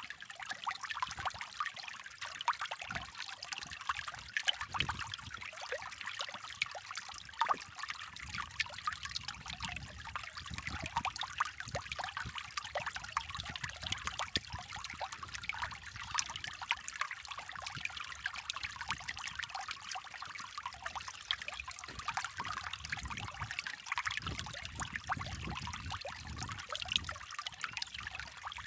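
Shallow creek water trickling and babbling steadily over stones.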